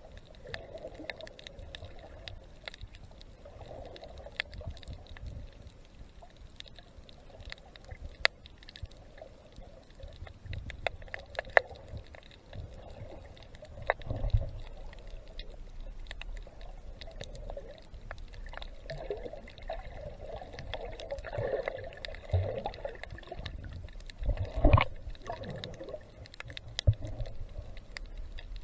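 Water sounds from a snorkeling dive: a murky sloshing wash with scattered sharp clicks and crackles, and a few low thumps, the loudest near the end.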